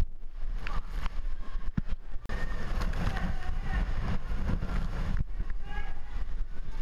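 Typhoon wind buffeting the microphone with a steady low rumble, over the hiss of driving rain and floodwater.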